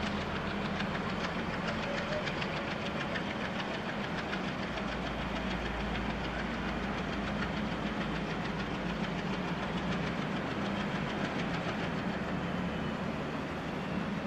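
ALCo diesel locomotive engine chugging steadily with a rapid, even knocking beat as it approaches. A deeper rumble swells for a few seconds in the middle.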